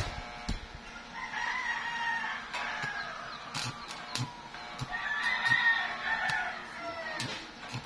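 A rooster crowing twice, each crow lasting about a second and a half, over scattered sharp crackles from a stick-welding arc.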